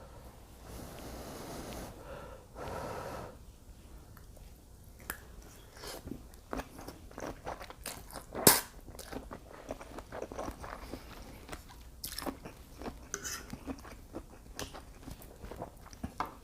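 A person eating shrimp and mussels with fettuccine close to the microphone: chewing with many small wet clicks and smacks. There is one sharper click about eight and a half seconds in, and two short hissing rushes near the start.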